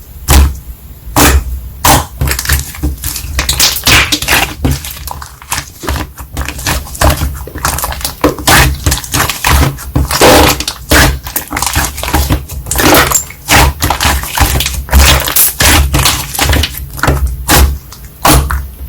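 Slime being squeezed and poked by hand, giving a dense, irregular run of sharp clicks, pops and crackles.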